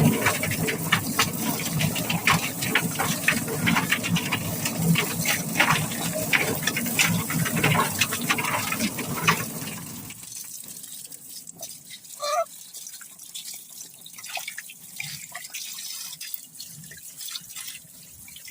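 Water gushing and splashing inside a chicken plucking machine as the scalded bird is plucked, with a dense, irregular patter of wet slaps. About ten seconds in it drops off sharply to faint splashing and dripping.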